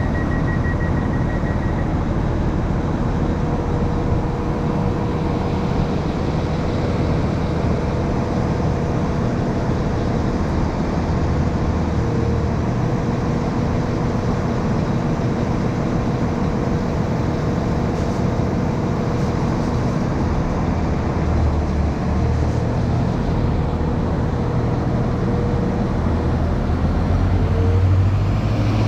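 Class 195 diesel multiple unit's underfloor diesel engines running steadily at the platform, then revving up near the end as the train starts to pull away. A quick row of high beeps sounds in the first couple of seconds.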